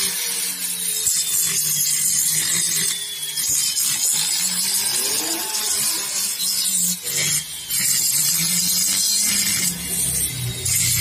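Flexible-shaft grinder spinning a homemade abrasive disc, cut from an old cutting wheel, as it grinds away spot-weld deposits in the crankshaft bearing seat of an aluminium Yamaha F1ZR crankcase. It makes a steady high whirring hiss with a brief dip a little past the middle. The seat is being trued so the crankshaft bearing fits tight and no longer wobbles.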